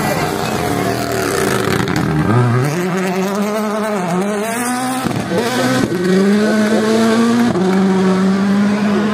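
Rally car engine at full stage speed. The pitch drops sharply about two seconds in as it brakes and downshifts, then climbs again in steps through several gear changes as it accelerates away.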